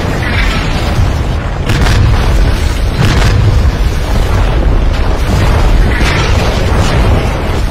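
Loud battlefield explosions: several sharp blasts, clearest about two and three seconds in, over a continuous deep rumble.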